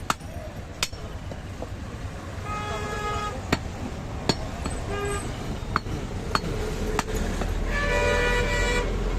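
Butcher's cleaver chopping mutton, sharp single strikes every second or so, while vehicle horns honk three times from passing street traffic. The last honk is the longest, near the end, over a rising engine rumble.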